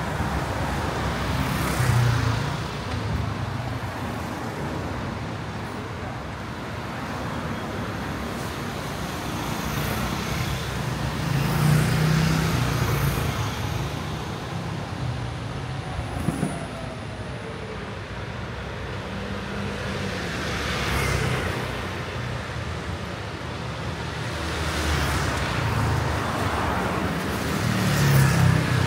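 Street traffic: vehicles passing one after another, each one swelling up and fading away, over a steady hum of road noise.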